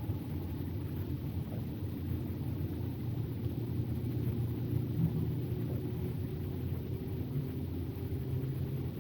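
Winter night ambience: a steady low rumble with no distinct calls standing out.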